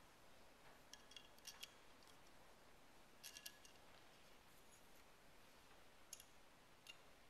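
Faint metallic clinks of small steel socket-head bolts being set into the bolt holes of a Kitagawa B206 power chuck: a few short clicks in small clusters, some ringing briefly.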